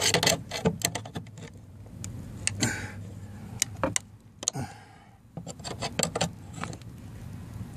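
Irregular metallic clicks, knocks and short scrapes as a flat-head screwdriver pries metal hanger strap so it bends into a curve.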